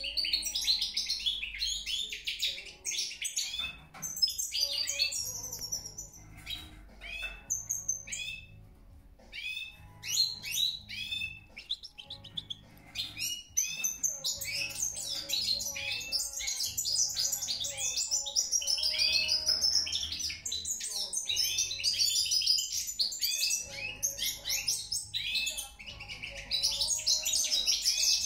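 European goldfinch singing: a fast, twittering run of chirps and trills. The song thins to a brief lull about eight seconds in, then carries on densely.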